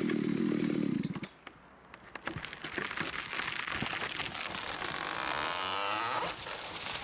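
Chainsaw running hard, then cut off about a second in; the huge tree trunk then cracks and snaps several times as it tips, with a growing rush of air as it falls, ending in a heavy impact as it hits the ground.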